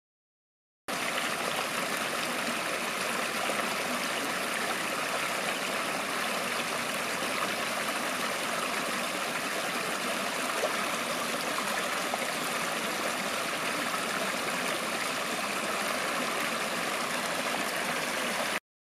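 Small rocky stream flowing over a low cascade: a steady rush of splashing water. It starts abruptly about a second in and cuts off sharply near the end.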